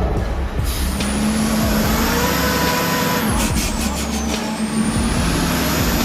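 Heavy truck engine running, with a high whine that rises twice and a short burst of clicks or rattles about halfway through.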